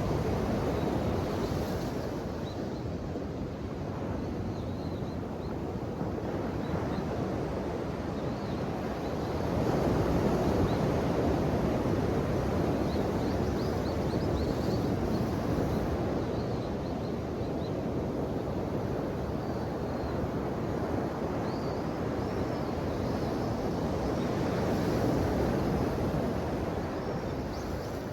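Ocean waves washing in, a steady rushing surf that swells and eases in slow surges, loudest about ten seconds in and again near the end.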